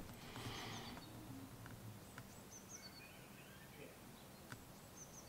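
Near silence, with a few faint, short bird chirps.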